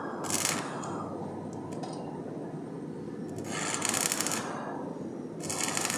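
Three short, harsh scraping strokes, about half a second in, around four seconds in and near the end, over a steady low background noise.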